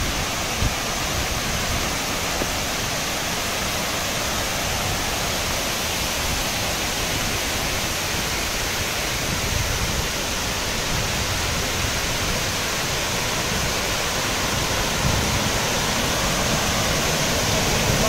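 Saluopa waterfall's water pouring down: a steady, unbroken rushing roar.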